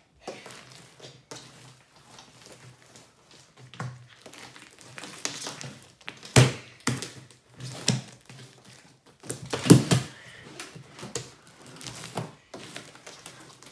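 Slime being kneaded and mixed by hand: irregular wet clicks and pops, with a few sharper knocks, the loudest about six and a half and ten seconds in.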